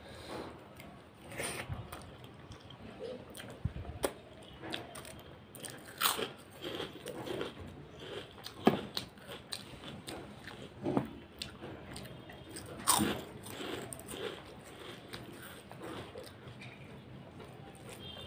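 Close-up chewing of a hand-mixed mouthful of rice, chicken curry and crumbled fried papad, with wet mouth noises and a few sharp crunches as the crisp papad breaks between the teeth; the loudest crunches come around the middle.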